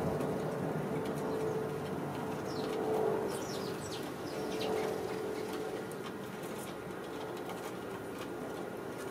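House sparrows chirping, with a flurry of short, falling chirps about two and a half to five seconds in, over a low steady hum.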